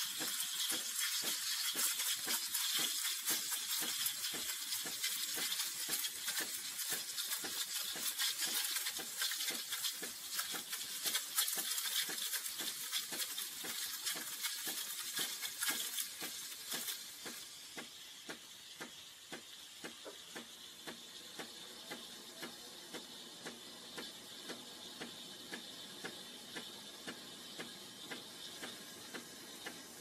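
Espresso machine steam wand hissing into milk in a stainless steel pitcher, with a loud crackling sputter as air is drawn in to froth it. About 17 seconds in it drops to a quieter, smoother hiss with a faint regular tick about once a second, as the milk is textured rather than aerated.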